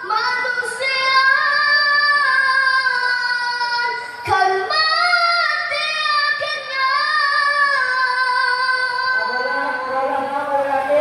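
A group of children singing together in unison, holding long notes and gliding between pitches.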